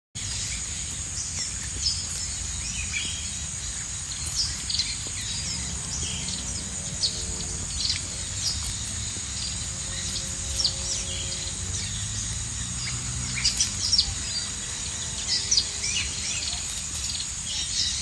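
Outdoor ambience: crickets trilling steadily at a high pitch, with scattered short bird chirps and a low steady rumble underneath.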